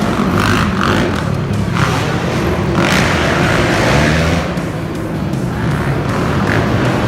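Monster truck engine running loud and revving, its pitch swinging up and down about four seconds in.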